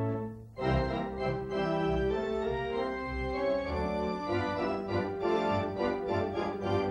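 Organ music accompanying the film: held chords that break off briefly about half a second in, then carry on with a moving melody over sustained notes.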